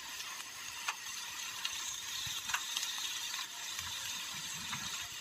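Sliced onions sizzling in oil in a steel pan, a steady frying hiss with a few short sharp ticks.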